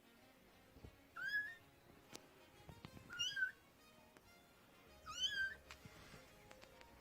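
Kitten meowing three times, high-pitched calls that rise and then fall in pitch, a kitten calling for its mother.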